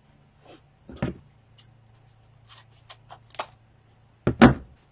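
Objects being handled and set down on a work table: a series of separate knocks and clicks, the loudest near the end, over a faint low hum.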